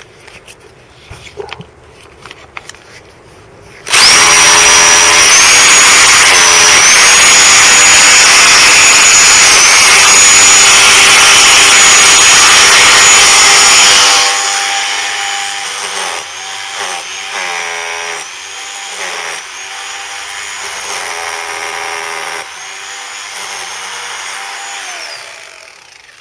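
Bosch GBH 2000 hammer drill with a flat chisel bit, chipping out the mortar and broken pieces of a blown brick. After a few faint scrapes it starts suddenly about four seconds in and runs very loud for about ten seconds, then quieter with the motor's pitch rising and falling in short spells, and stops just before the end.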